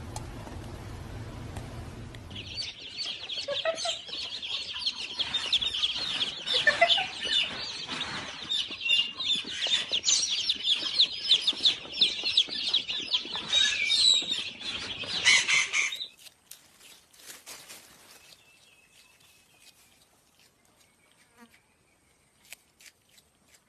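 Many birds chirping and calling at once, a dense loud chorus with sharp clicks that starts a couple of seconds in and drops away about two-thirds of the way through, leaving only faint scattered clicks.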